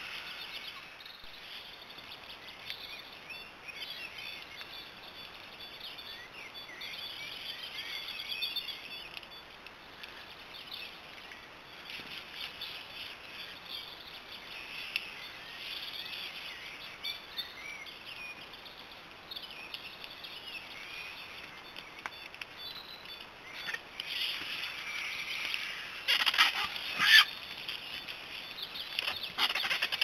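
Griffon vultures feeding at a carcass, with bird chirps throughout. About 26 seconds in there is a louder burst of harsh squabbling calls and scuffling among the vultures.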